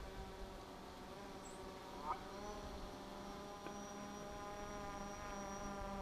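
DJI Phantom 4 quadcopter flying overhead, its propellers giving a steady buzzing whine that dips and then rises again in pitch about two seconds in, with a short click at that moment.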